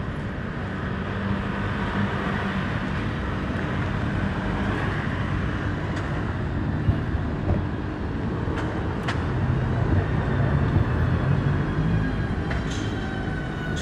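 City street ambience dominated by a steady rumble of road traffic, with a few sharp clicks and a faint high, slightly falling squeal near the end.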